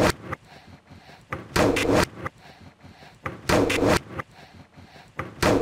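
A short, loud clatter about half a second long, repeated as an edited stutter loop roughly every two seconds, four times in all, with only faint background between the repeats.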